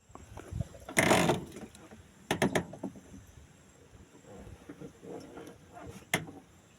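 Handling noises: a brief loud scraping rush about a second in, then a quick run of three sharp clicks and one more click near the end.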